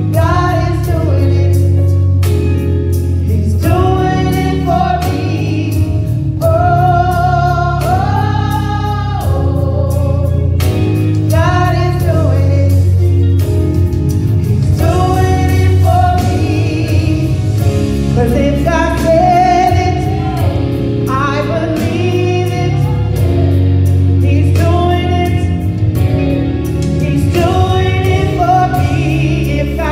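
Two women singing a gospel song into microphones over instrumental accompaniment with a deep, steady bass.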